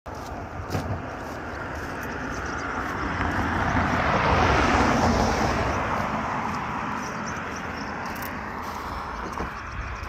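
A road vehicle passing, its noise swelling to a peak about halfway through and then fading away.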